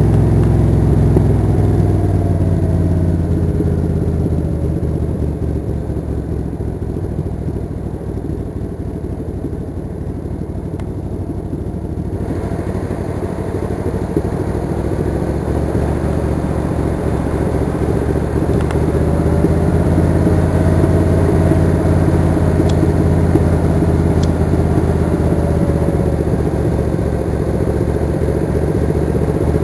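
Suzuki Intruder 800 V-twin engine running while the motorcycle is ridden. It eases to a quieter note for a stretch early on, then grows louder again about halfway through, its pitch rising and falling gently as the revs change.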